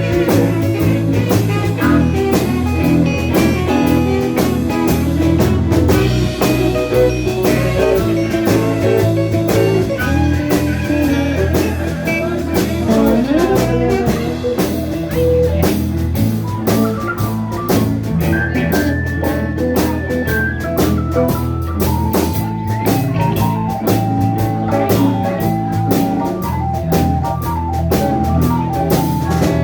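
Live blues-rock band playing an instrumental passage: electric guitar over bass and drum kit, with a steady beat.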